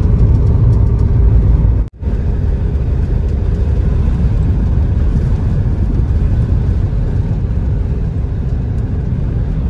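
Wind buffeting the microphone: a loud, steady low rumble that breaks off abruptly for an instant about two seconds in, then carries on.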